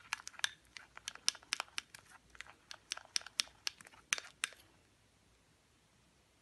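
Plastic spoon stirring a foamy liquid soap mixture in a glass bowl, making rapid, irregular clicks and taps against the glass. The stirring stops about four and a half seconds in.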